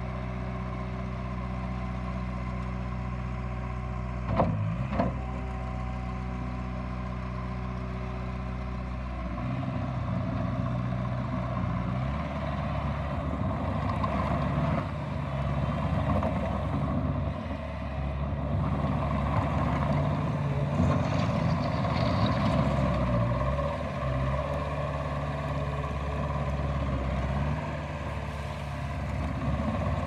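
Bobcat T650 compact track loader's diesel engine idling steadily, with two sharp clunks about four and a half seconds in. From about nine seconds in the engine speeds up and runs under load, its pitch stepping up and down as the machine drives and works.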